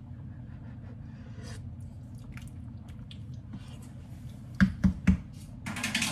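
Wooden spoon stirring a thick stew in an enameled cast-iron Dutch oven, with soft scrapes over a steady low hum. About four and a half seconds in the spoon knocks sharply against the pot three times, followed by a brief scraping hiss near the end.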